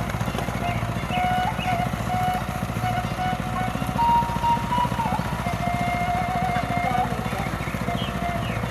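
A small engine running steadily, with a fast even pulse.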